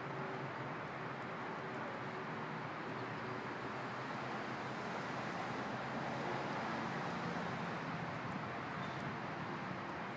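Steady outdoor urban background hum and hiss, like distant traffic, swelling slightly about six seconds in.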